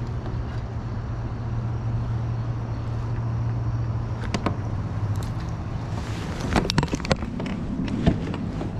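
Steady low hum over a rushing background, then a cluster of knocks and rattles about six to seven seconds in as a smallmouth bass is brought into a rubber-mesh landing net in a kayak.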